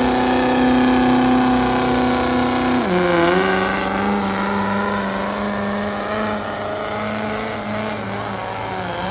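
Diesel pickup truck engine at full throttle, dragging a weight-transfer sled. It runs at a steady high pitch, then about three seconds in the pitch drops and holds lower.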